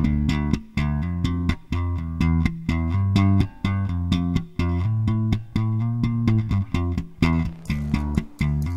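Background music with a steady beat and a low, plucked bass line.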